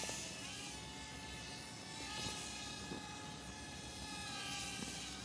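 High-pitched buzzing whine of a HobbyKing Micro Cessna 9g micro RC plane's small brushed electric motor and propeller in flight. The pitch shifts slowly with throttle, and the sound swells and fades three times as the plane passes.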